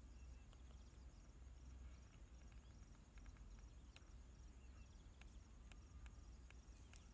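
Near silence: faint outdoor ambience in which insects chirp in an even, repeating pattern, with a few faint clicks and a low rumble underneath.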